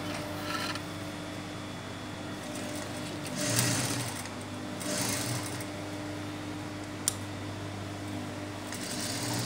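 Industrial flatbed sewing machine stitching along a fabric edge: a steady motor hum that swells louder in short stitching runs, a little past three seconds in, around five seconds in and again near the end. One sharp click a little after seven seconds.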